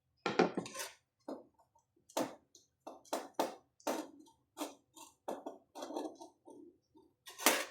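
Irregular small clicks and light knocks of parts being taken off a patient monitor's circuit board and handled one by one, about a dozen over several seconds, the loudest near the end.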